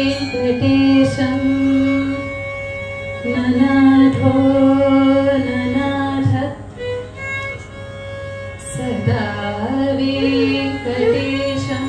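A woman singing Carnatic music in held, ornamented phrases that bend in pitch, accompanied by violin, with a few scattered mridangam strokes.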